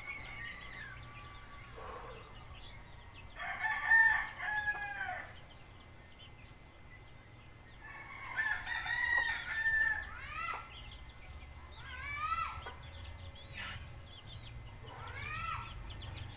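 Roosters crowing: a loud crow about four seconds in and a second crow about eight seconds in, followed by several shorter rising-and-falling chicken calls.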